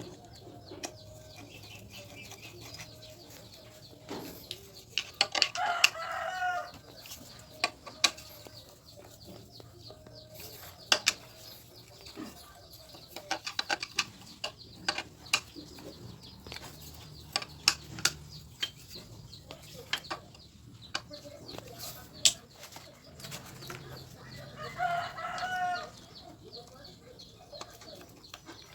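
A rooster crowing twice, about five seconds in and again near the end, each crow lasting about a second and a half. Scattered sharp clicks and knocks come between the crows.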